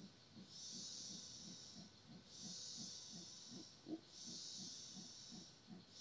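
Faint rainforest insect chorus: a high buzzing call that swells for about a second and a half and breaks off, repeating about every two seconds, over a faint low pulsing of about three to four beats a second.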